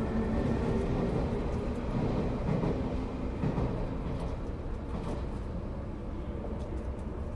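Sotetsu 9000 series electric train running between stations, heard from inside the passenger car: a steady rumble of wheels and motors with a faint tone that fades early on, the whole growing slowly quieter.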